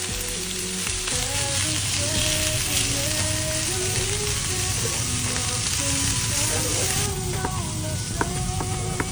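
Food sizzling steadily in a hot frying pan, with a few sharp clicks near the end.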